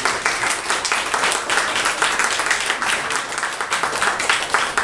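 Audience applauding: many hands clapping at once, at an even level throughout.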